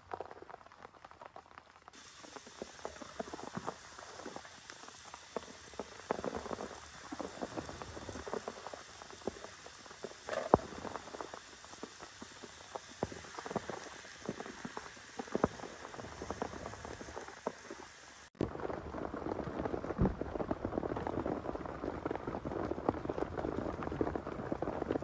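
Rain falling, with individual drops ticking sharply on a nearby surface. About 18 seconds in the sound cuts abruptly to louder, denser rain patter.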